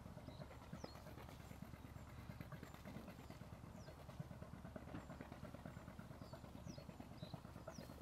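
Faint countryside ambience: a steady low rumble and light crackle, with short, high bird chirps about once a second.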